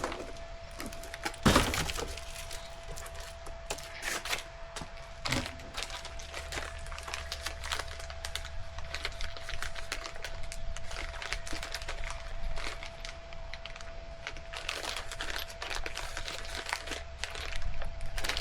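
Plastic packaging crinkling and rustling, with scattered clicks and knocks as small parts are handled, and a louder knock about one and a half seconds in. A faint steady hum runs underneath.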